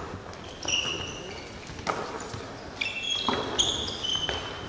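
Basketball play on a gym floor: sneakers squeal in short, high squeaks as players cut and stop, and there are a few sharp thuds from the ball bouncing and from feet landing.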